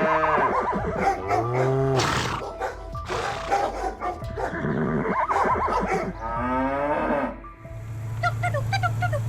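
A run of loud animal calls that bend in pitch, with music. Near the end they give way to a steady low hum with short chirping notes.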